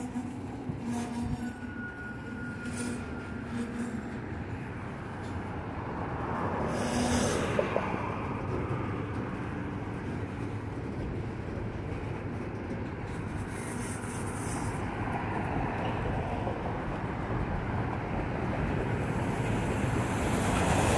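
Freight train cars, autoracks then double-stack container well cars, rolling past close by, their wheels rumbling and clacking on the rails and growing louder near the end. A brief thin wheel squeal comes about two seconds in.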